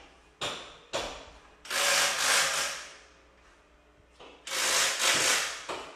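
A workshop power tool running in short bursts: two brief blips in the first second, then two longer runs of about a second each, the second starting about four and a half seconds in.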